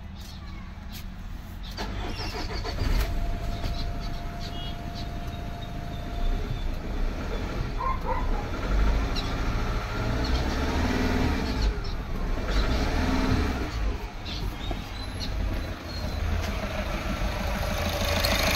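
Diesel car engine starting on the starter motor and then running, growing louder. It fires up readily now that the rat-chewed camshaft sensor wiring has been repaired.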